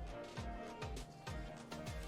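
Background music with a steady electronic beat, a low kick drum about two to three times a second.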